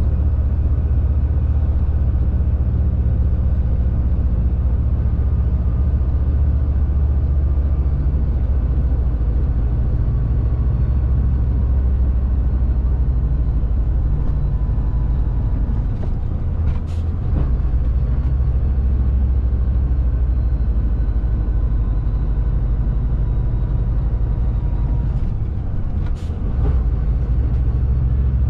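Shacman X3000 heavy truck's diesel engine running steadily under way, heard inside the cab. About halfway through and again near the end there is a brief air hiss as the engine note dips for a moment.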